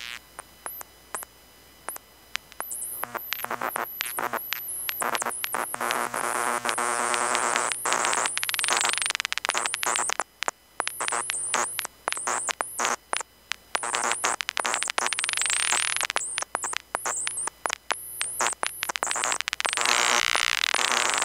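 Four circuit-bent hard-drive motors driven by control voltage, their sound picked up by induction coils as harsh electronic noise. It opens with sparse clicks, and from about two and a half seconds becomes a dense, louder stutter of rapid clicks, high chirps and buzzing tones.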